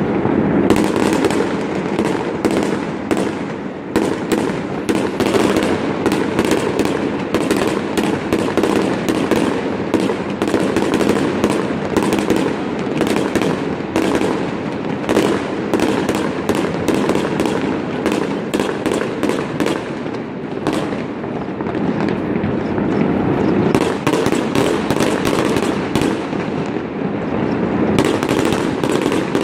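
Aerial fireworks display: a continuous rapid run of bangs and crackles from bursting shells, many a second, over a steady din. The bangs thin briefly about two-thirds of the way through.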